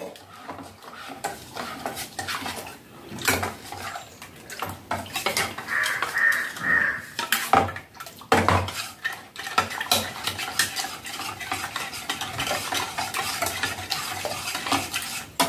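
Metal spoon stirring a liquid custard mixture in a stainless steel saucepan, clinking and scraping against the pan's sides and bottom. Two or three louder knocks of spoon on pan stand out, about three and eight seconds in.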